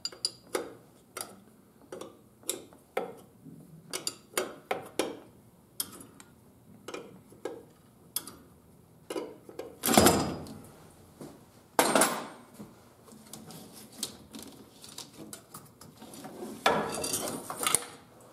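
Hand wrenches and a ratchet clicking and clinking in short irregular strokes on the brake booster and master cylinder hardware. About ten seconds in come two louder metal clunks, and near the end a longer scraping clatter as the old brake booster is worked free and lifted out.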